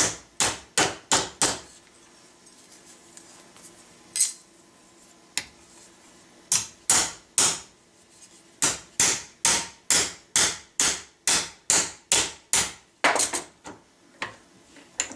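Hammer blows on thin sheet-metal thimble stock clamped in a bench vise over a mandrel, pre-bending the tang of a muzzleloader ramrod thimble. Sharp strikes in bursts: a quick run of five at the start, a few scattered blows, then a steady run of about a dozen at two to three a second.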